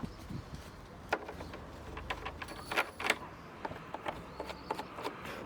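Scattered light clicks and knocks, several sharp ones close together around the middle, over a low background hum.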